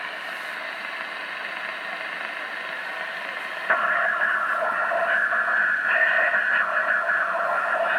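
CB radio receiver hissing with band-limited static. About halfway through, a transmission breaks in: the sound jumps suddenly louder and thickens in the middle range.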